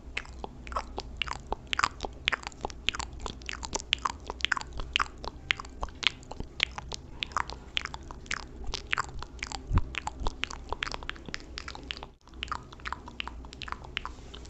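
Close-miked ASMR mouth sounds: rapid wet clicks and smacks, several a second, with a short break about twelve seconds in.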